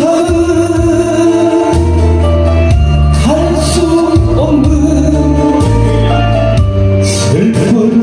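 A man singing a Korean trot song into a handheld microphone over a recorded backing track, holding long notes with vibrato.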